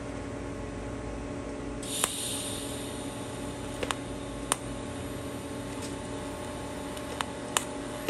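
TIG welder tack welding steel mesh to a steel box: a steady electrical hum with a short hiss about two seconds in and a few sharp snaps as the arc is struck for brief tacks, two of them close together near the end.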